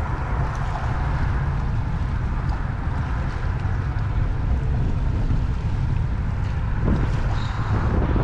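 Steady wind buffeting the microphone, a continuous low rumble with a hiss above it.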